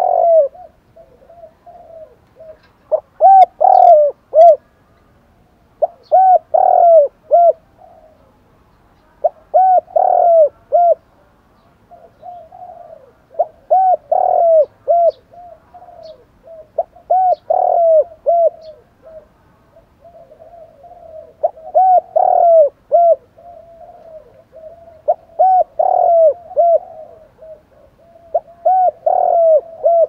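Spotted dove cooing: a phrase of several quick, rising-and-falling coos, repeated about every three to four seconds.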